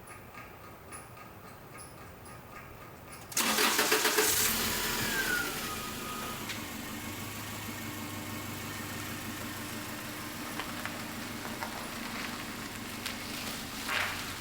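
A regular light ticking, about one and a half a second, then the 1999 Subaru Outback's 2.5-litre boxer four is started about three seconds in, catching at once with a brief falling whine and settling into a steady idle. It is starting on a freshly fitted, primed fuel filter.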